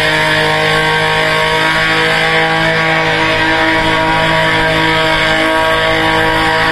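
Car engine held at steady high revs during a burnout, over the hiss of the spinning rear tyres.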